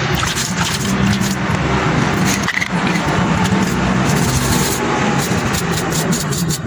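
Steady rush of water running from a hose onto a wet concrete floor, over a constant low rumble.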